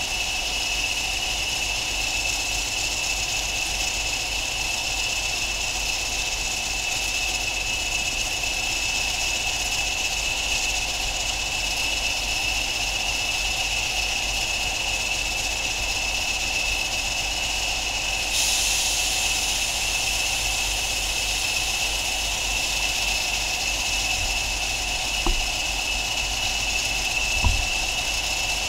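Pair of Class 20 diesel locomotives with English Electric eight-cylinder engines idling at a standstill, with a steady high whistle over the engine note. A hiss joins suddenly about two-thirds of the way through.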